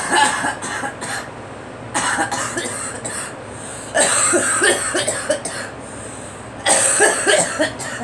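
A woman coughing in four fits, each of several quick coughs, while smoking a cigarette.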